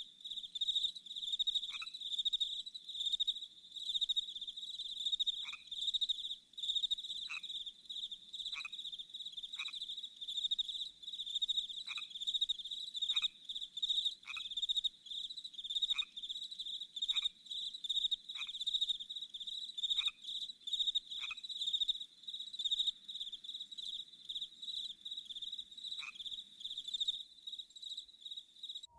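Crickets chirping in a steady, pulsing high chorus, with a short falling note from another animal repeated every second or two.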